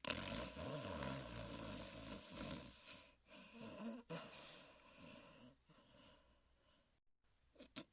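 Huckleberry Hound, the cartoon dog, snoring: one long snore loudest in the first half, trailing off over the next few seconds, with the next snore starting near the end.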